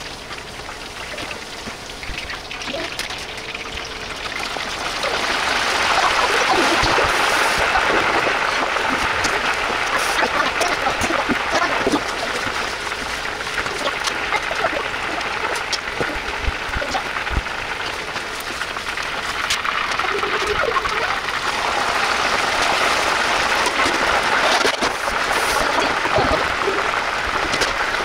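Hot oil in a pot deep-frying food, sizzling and crackling steadily, getting louder about five seconds in.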